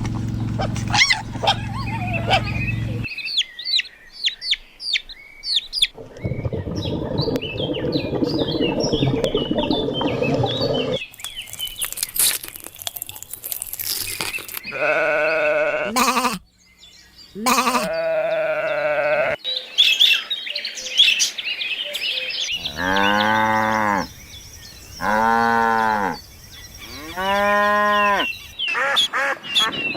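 Sheep bleating: five separate bleats from about halfway on, each arching up and down in pitch and lasting a second or so. At the start a low, steady moo plays over chirping small birds, and a stretch of rough low noise fills the middle.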